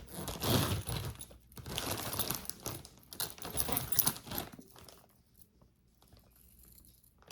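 Jewelry being handled and sorted: small metal pieces clinking and jangling, with some rustling, for about five seconds, then it goes quiet.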